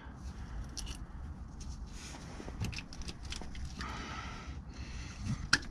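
Engine oil draining out of a Toyota 4Runner's oil filter housing through the inserted drain fitting: a faint trickle with scattered light clicks, and one sharper click near the end.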